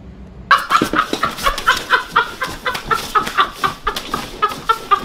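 Rapid chicken clucking, a quick irregular run of about four or five clucks a second, starting about half a second in.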